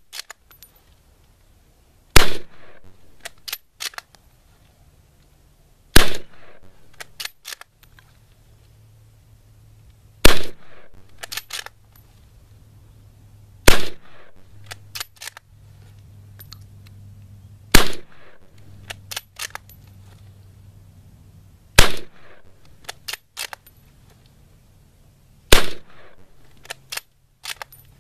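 Short Magazine Lee Enfield No.1 Mk.III* bolt-action rifle firing .303 British surplus rounds: seven shots about four seconds apart, each followed about a second later by a quick cluster of clicks as the bolt is worked. Every round goes off promptly, with no hang fires.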